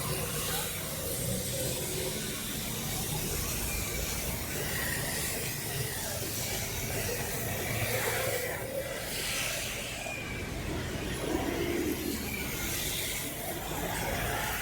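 Street traffic with a steady hiss, a vehicle swishing past about eight seconds in and another near the end.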